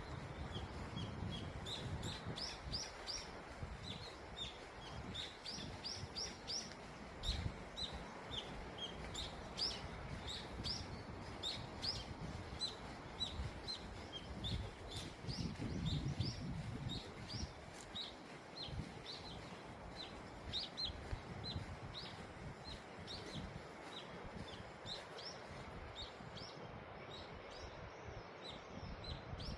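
Small birds chirping: a steady stream of short, high chirps over a soft background hiss, with a few low rumbles in between.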